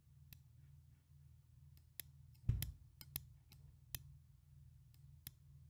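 Computer mouse clicks, about nine scattered irregularly, over a low steady hum; the loudest, about two and a half seconds in, comes with a dull thump.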